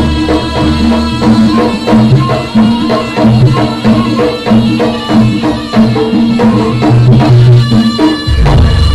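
Live jaranan music: a Javanese percussion ensemble playing a quick, even beat of drum strokes under pitched tones. A deep low tone comes in near the end.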